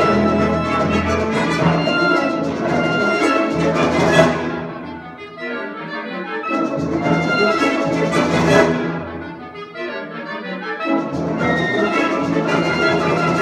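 Concert wind ensemble playing, brass to the fore. Two sharp accented hits, about four and eight and a half seconds in, each drop back to a quieter passage, and the full band swells in again near the end.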